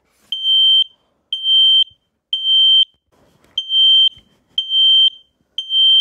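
Kidde KN-COSM-BA smoke alarm sounding its alarm: two sets of three loud, high-pitched beeps, each about half a second long, with a pause between the sets. This is the temporal-three pattern that signals smoke or fire.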